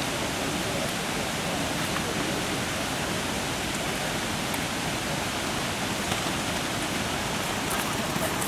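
Steady rushing of flowing water, an even hiss with no breaks or changes in level.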